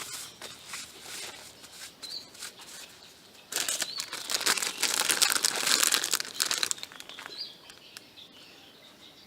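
Crinkling and rustling from something being handled, loudest and densest from about three and a half to seven seconds in, with a few faint bird chirps.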